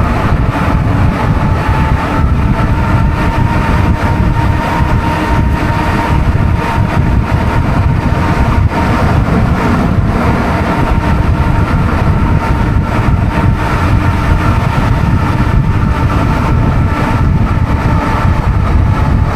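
Wind rushing over the microphone of an e-bike moving at about 37 mph, with a steady high whine running through it.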